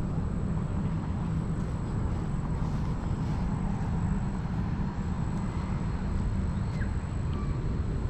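Steady low outdoor rumble with no clear pitch or rhythm, with a few faint short chirps above it.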